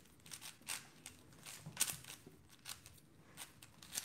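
A 4x4 speedcube being turned fast during a timed solve: quick, irregular light clicks and clacks of the layers, several a second.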